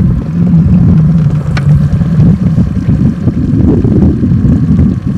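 Boat's outboard motor running steadily at idle: an even, low drone.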